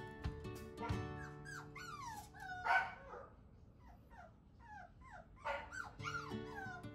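A dog whining in a string of short, high, falling yelps, with one louder bark a little under 3 s in, over soft background music.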